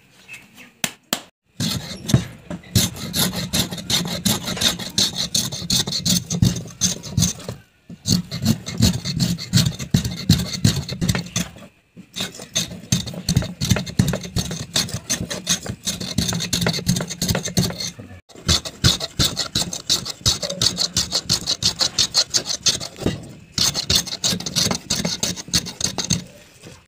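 Woodworking hand tools scraping and shaving wood in fast, repeated strokes, in five runs with short breaks between them; near the end a hand plane is shaving along the edge of a plank. A few separate clicks come first.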